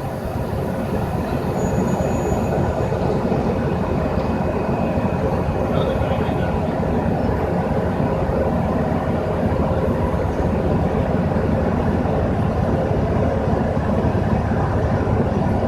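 Asphalt milling machine running, a steady, loud machine noise with a constant hum in it, growing slightly louder about a second in as the machine prepares to lower its cutter to grind.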